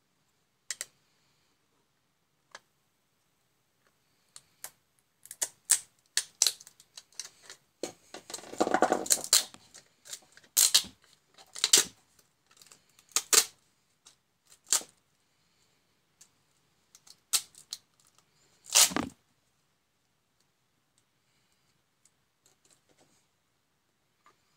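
Hard plastic parts of a small electronic unit's housing clicking, scraping and clacking as the case is pried apart by hand and screwdriver. A scraping rustle runs for about a second and a half near the middle, and there are several single sharp clacks, the loudest near the end.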